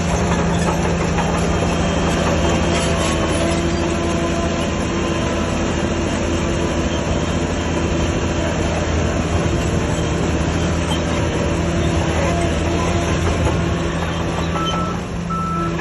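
Shantui DH17C3 crawler bulldozer at work: its diesel engine runs steadily with a low, even hum, under the clatter of its tracks and machinery.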